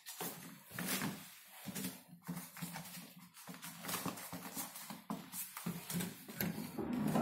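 Footsteps of someone walking in slippers, a series of irregular light slaps and shuffles on the floor.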